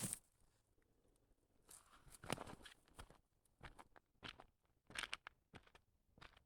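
Faint footsteps crunching on a dirt trail: a string of short, irregular crunches starting about two seconds in.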